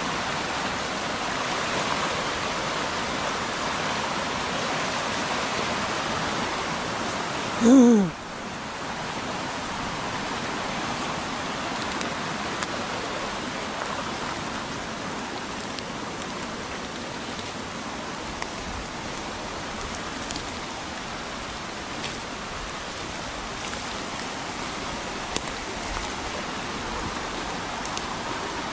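Steady rushing noise of heavy rain and flooded creek water. About eight seconds in there is one brief, loud, pitched cry, and the water noise is a little quieter after it.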